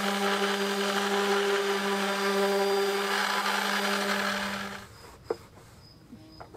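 Electric random orbital sander running steadily on a wooden cupboard door, a hum with a hiss, cutting off about five seconds in. A single light knock follows.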